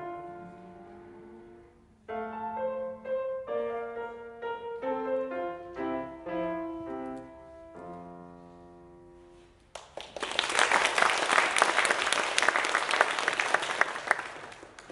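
Grand piano playing a slow phrase of single notes that ends on a held final chord ringing out, marking the end of the piece. About ten seconds in, audience applause breaks out, louder than the piano, and fades near the end.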